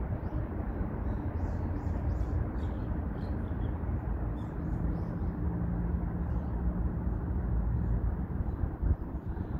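Outdoor background ambience: a steady low rumble, with a faint hum in the middle, and faint distant bird chirps in the first half.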